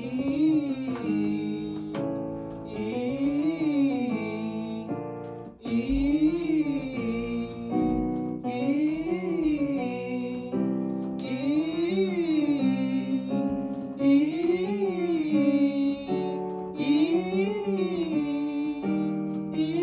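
A singer vocalising a warm-up scale on the "E" vowel over piano chords. Each phrase rises and falls back down in an arch, and it repeats about seven times with the keyboard changing chord between phrases.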